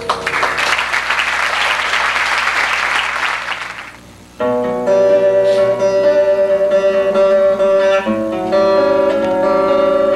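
Audience applause, fading away over about four seconds. Then acoustic guitars abruptly begin playing ringing picked notes.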